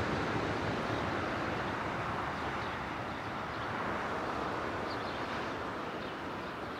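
Airbus A320 jet engines rushing as the airliner decelerates on the runway just after landing, the noise slowly fading as it rolls away.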